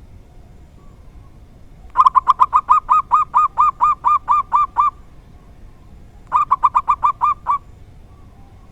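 Zebra dove (perkutut) singing its rhythmic cooing song: a quick run of about twenty short arched coos that spaces out as it goes, then after a pause a shorter run of about eight. This is the local bird's rare 'dor tak kowor kowor' song type.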